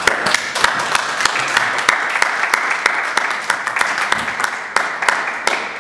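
Small audience applauding by hand, starting suddenly at the end of a reading, with individual sharp claps standing out of the steady clapping.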